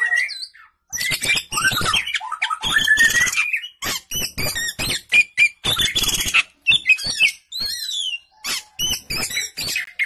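Oriental magpie-robin (kacer, pied 'blorok' form) singing loudly in a fast, varied run of clear whistles, sweeping glides, harsh rasping notes and clicks, with a brief pause about a second in.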